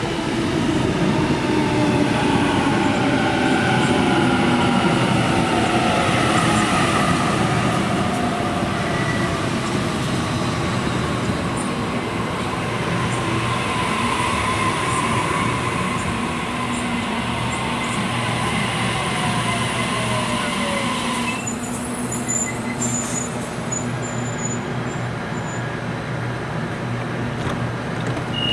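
Sydney Trains Waratah (A set) double-deck electric train pulling into the platform and braking. The whine of its traction motors falls steadily in pitch as it slows and cuts off about 21 seconds in as it stops, leaving a steady hum from the standing train.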